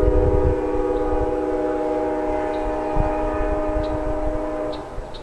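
Lead locomotive's multi-note air horn, on CN 5789, an EMD SD75i, sounding one long steady chord and cutting off near the end.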